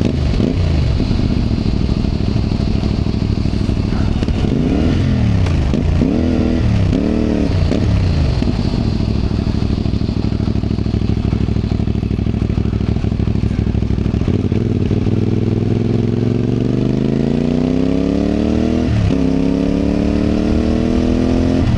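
CFMOTO 450MT's parallel-twin engine under way, its pitch swinging up and down with throttle and gear changes around five to eight seconds in, then running steadily, then climbing in a long acceleration with a brief drop for a gear change near the end.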